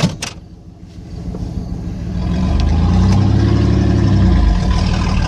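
A sharp knock, then a 1992 Chevy Silverado 1500 pickup's engine building up under throttle and pulling steadily, getting louder from about two seconds in.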